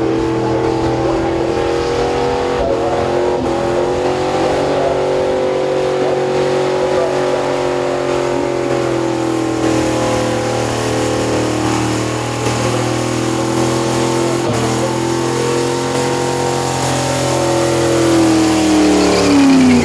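Supercharged, methanol-fuelled engine of a Commodore wagon held at high revs through a burnout, its pitch wavering up and down over a steady hiss of spinning tyres. The revs drop away near the end.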